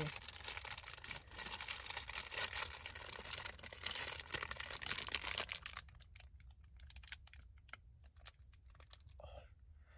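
Crinkling and crunching of a snack being bitten into and eaten close to the microphone for about five and a half seconds, then only faint scattered clicks.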